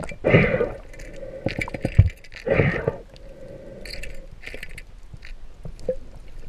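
Muffled underwater noise from a diver's hands and spear as they handle a speared fish. Two louder rushing surges come about two seconds apart, with scattered clicks and knocks.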